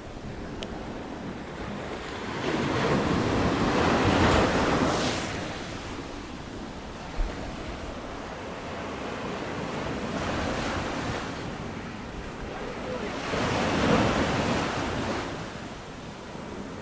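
Mediterranean sea waves breaking and washing up the shore in three slow swells, the first and last the strongest, with wind rumbling on the microphone. A single short low thump comes about midway.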